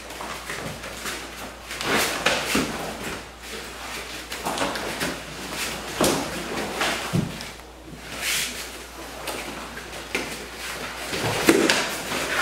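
Close-quarters grappling: heavy cotton karate uniforms rustling and rubbing, bare feet shuffling on floor mats, and bodies bumping against a wall, in irregular scuffling bursts.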